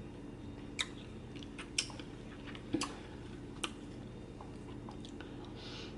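Close-up mouth sounds of a person eating: a few sharp wet smacks and clicks, about one a second, over a low steady hum.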